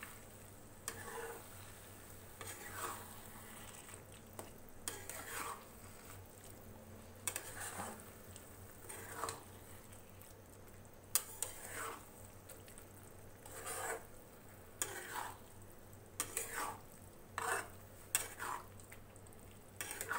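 Metal spatula scraping and stirring crumbled paneer bhurji in a metal kadhai, in irregular strokes about once a second with a few sharp clinks against the pan, over a light sizzle of the masala frying on high flame.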